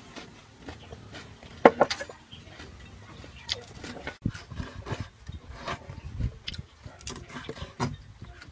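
A kitchen knife cutting through crisp grilled pork on a wooden cutting board, with irregular knocks and crackles as the blade goes through the crust and strikes the board. A loud clatter comes about two seconds in.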